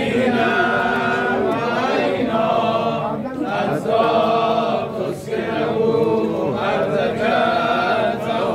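A crowd of pilgrims chanting together in unison, a devotional recitation in phrases a second or two long with short breaks between them.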